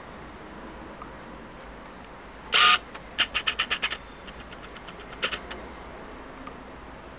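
Plastic rotary thermostat dial being turned by hand to switch on a brooder heat bulb. One loud short click or scrape, then a quick run of about seven sharp clicks, fainter clicks, and a final pair of clicks.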